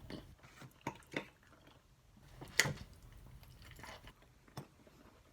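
Close-up eating sounds: faint wet mouth clicks and smacks while chewing food, a handful of separate short clicks, the loudest about two and a half seconds in.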